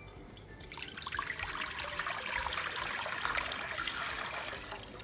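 Tap water running and splashing into a large cooking pot, filling it for boiling pasta; the flow starts about a second in and stops near the end.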